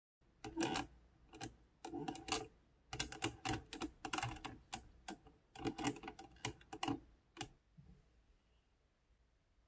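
Hands handling a ball-jointed doll and its packaging: a run of sharp clicks and crackles in irregular clusters, stopping about three-quarters of the way through.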